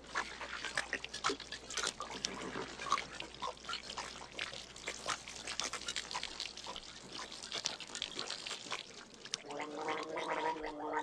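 Wet gurgling and glugging of water in the mouth and throat from drinking out of a leather canteen and gargling. Near the end a throaty, pitched gargle on one note is held for a couple of seconds.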